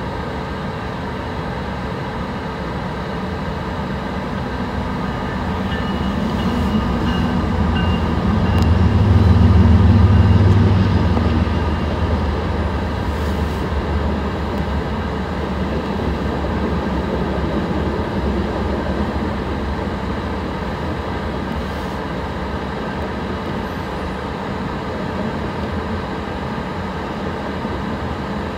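Freight train passing close by. A deep diesel-locomotive engine drone swells to its loudest about nine to eleven seconds in. Then a string of covered hoppers and tank cars rolls by with a steady rumble of wheels on rail.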